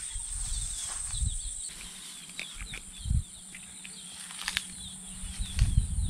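Outdoor rural ambience: many faint, quick, high chirps repeating over a steady high drone, with a few light clicks and a dull knock about three seconds in.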